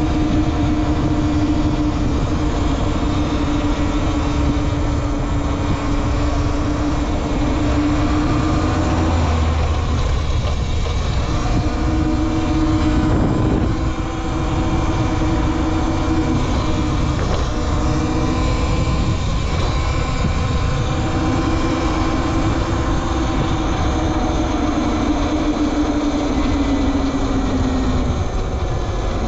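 Talaria Sting R MX4 electric dirt bike being ridden: its electric motor and drivetrain whine, shifting in pitch as speed changes and easing off for a few seconds at a time, over steady wind rush and rumble.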